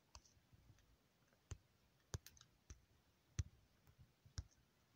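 Faint, irregular clicks of taps on a smartphone's on-screen keyboard as a word is typed, about half a dozen in a few seconds.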